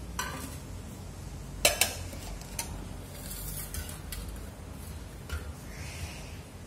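Stainless steel plates and utensils clinking: a handful of sharp metal clinks, the loudest two close together a little under two seconds in, over a low steady hum.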